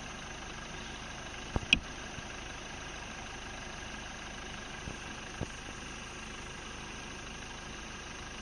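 Vehicle engine idling steadily. Two sharp clicks come about a second and a half in, and two fainter knocks around five seconds.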